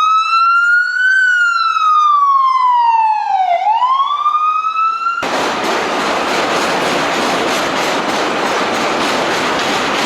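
An emergency vehicle's siren wailing, slowly rising, falling and rising again. About five seconds in it cuts off abruptly to the loud rumble and wheel clatter of a subway train running past.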